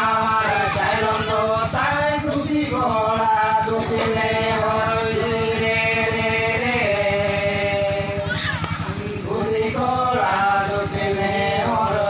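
Men singing a Santhali song into a microphone, in long held notes that slide from pitch to pitch, with no clear drumming.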